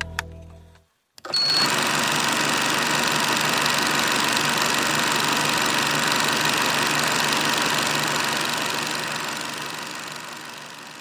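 Steady mechanical whirring and clatter of a film projector sound effect, starting abruptly after a short silence about a second in with a brief high beep, then fading out over the last few seconds.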